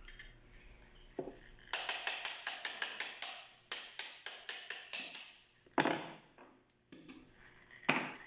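Small parts of a photocopier drum unit being worked on by hand: a quick run of light, scratchy tapping strokes, about five a second, then a few sharper knocks.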